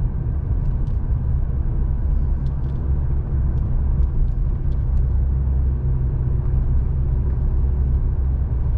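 Steady low rumble of a car driving along, heard from inside the cabin, with a faint steady hum and a few light ticks.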